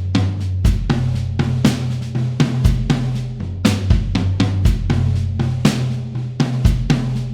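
Sampled rock drum kit from EZdrummer 3's Classic Rock EZX library playing a steady beat of kick, snare, hi-hat and cymbals, over a bass line whose note changes every second or so.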